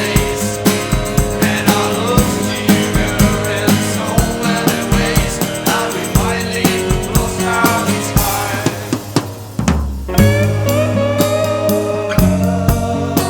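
Instrumental passage of a rock song: a live drum kit keeps a steady beat with snare and bass drum under the band. About three quarters of the way through the music thins out briefly, then the full band comes back in.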